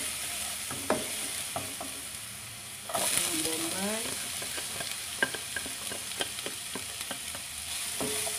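Minced garlic sizzling in olive oil in a nonstick pan, stirred with a spatula that clicks and scrapes against the pan. About three seconds in, diced onion is tipped into the hot oil and the sizzle gets louder as stirring goes on.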